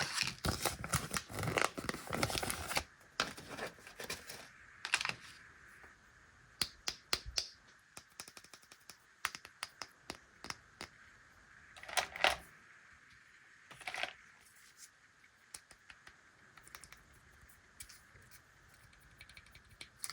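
Plastic sweet wrappers crinkling for a few seconds, then scattered light clicks and taps of small packaged sweets and packaging being handled, with a few louder taps.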